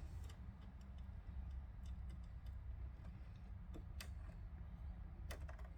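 Faint, scattered small metal clicks and taps of a tiny screwdriver and screw being worked against a sewing machine's walking foot and presser bar while the screw is started, with a sharper click about four seconds in and another near the end, over a low steady hum.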